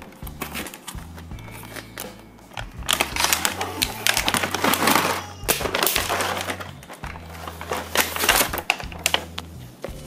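Cardboard box and plastic packaging of a toy train set being handled, with irregular rustling, crinkling and clicking that grows busiest a few seconds in and again near the end, over background music with a bass line.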